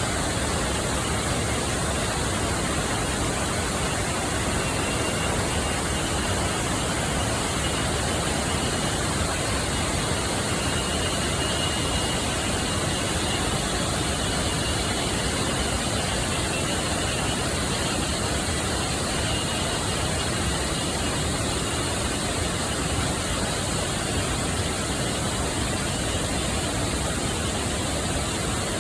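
Waterfall's steady rush of falling water, an unbroken even noise at constant loudness. A faint thin high tone comes and goes in the middle stretch.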